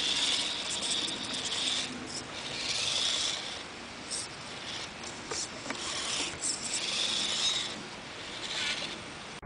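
Losi micro rock crawler's small electric motor and gears whining on and off as it crawls over rock, with its tyres and body scraping and rubbing through grass and leaves.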